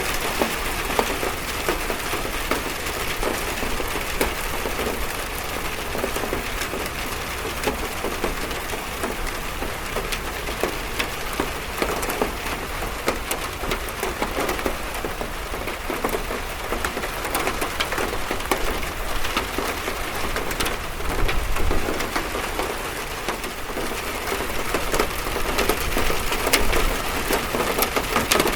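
Steady rain falling on a metal roof, a dense patter of many sharp drop impacts over a constant hiss, swelling a little in intensity in the last third.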